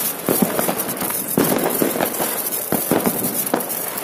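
Ground fireworks spraying sparks, hissing with a quick, irregular run of crackling pops.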